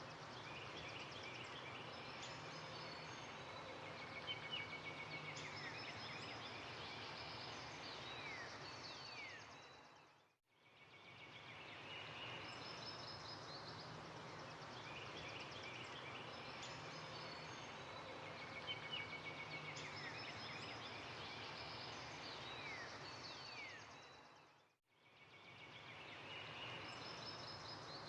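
Birds chirping and whistling in short falling notes over a steady outdoor background hiss. The same stretch fades out and starts again twice, about every fourteen seconds, as a looped ambience track.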